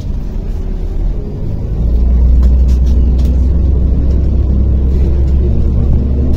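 MAZ-105.065 city bus under way, heard from inside the passenger cabin: a deep, steady engine and road rumble that grows louder about two seconds in and then holds.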